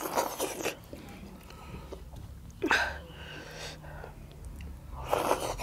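Mouth sounds of people eating by hand: wet slurps and finger-sucking in three short bursts about two and a half seconds apart, with quieter chewing between.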